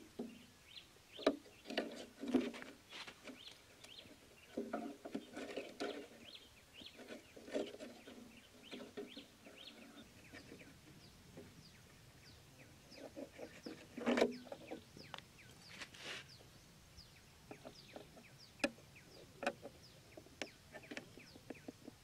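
Chickens clucking with short, repeated high chirps, against scattered sharp clicks and taps from bamboo sticks and a plastic jar being handled.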